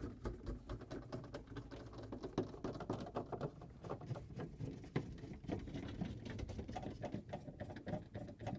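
Irregular light clicking and scraping of hand-tool work: quarter-inch screws being driven with a nut driver to fasten the freezer's side rails.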